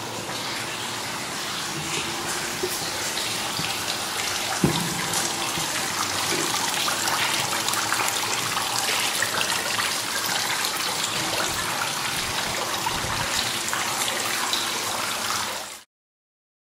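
Water from a tiered stone fountain streaming and splashing steadily into its basin, with one short knock about four and a half seconds in. The sound cuts off abruptly near the end.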